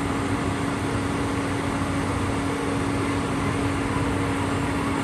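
Excavator's diesel engine running steadily, a constant hum with no rise or fall in speed.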